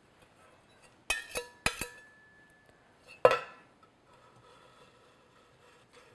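Metal icing scraper clinking against hard kitchenware: four quick ringing clinks about a second in, then one louder clink a little past the middle.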